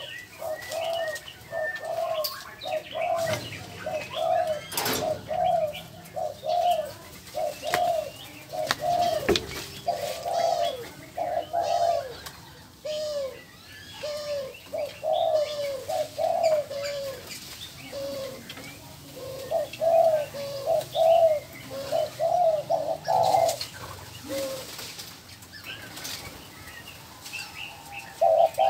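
Captive dove (the breeder's 'te te quách') cooing in a long run of short, even coos, about two a second, broken by brief pauses. Fainter chirps of smaller birds and one sharp click about five seconds in.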